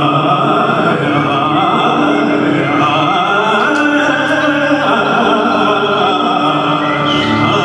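Raga Puriya Dhanashree performed live: a male voice singing long, gliding held notes in Indian classical style over a bowed violin and acoustic guitar, with a steady drone underneath.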